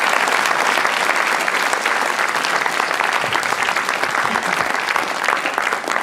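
Conference audience applauding steadily at the end of a talk, dense clapping from many people in a hall.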